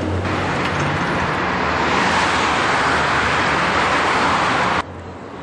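City road traffic noise: a steady rush with a low rumble, swelling in the middle and cutting off suddenly near the end.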